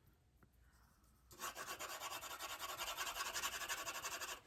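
Rapid back-and-forth shading strokes of a drawing tool scratching on sketchpad paper, starting about a second and a half in and stopping just before the end.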